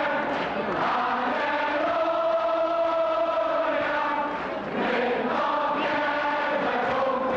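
A large crowd singing together in unison, long held notes from many voices, with a short break about four and a half seconds in before the next phrase.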